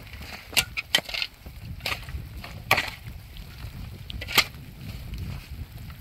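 Steel shovel blades stabbing and scraping into stony, gritty soil, about five sharp scrape-and-crunch strikes at uneven intervals, the sharpest about four and a half seconds in.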